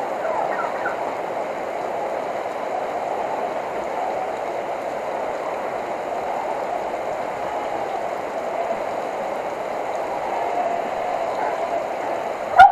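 Steady rain falling, with drops hitting the wet vehicle hood the camera sits on: an even, unbroken patter. Right at the very end a turkey breaks in with a loud gobble.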